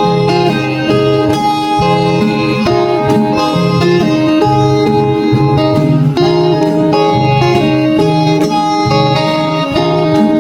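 Instrumental music led by a plucked string instrument, with a steady low bass under a run of changing notes.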